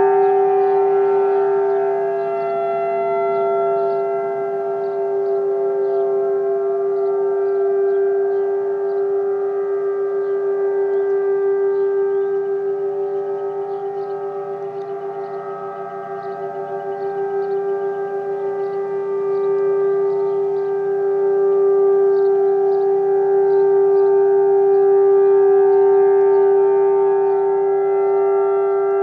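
Several outdoor warning sirens, including Federal Signal 2001 and ACA 1003 rotating sirens, sounding the steady alert tone together in a scheduled test. Their blended, unwavering pitch swells and fades as the rotating horns sweep toward and away.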